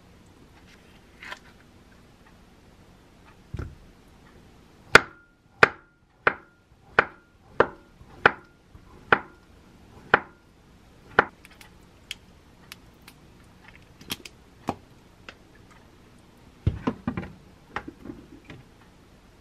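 Kitchen knife slicing a halved avocado on a wooden cutting board: a run of about nine sharp knocks of the blade on the board, roughly one and a half a second, each with a brief metallic ring, then lighter taps. Near the end, a wooden spoon clatters in a glass mug.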